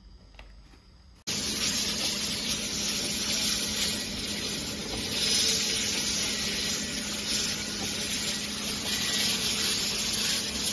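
Candy depositing machine running, a loud steady hiss with a faint low hum underneath, starting abruptly about a second in.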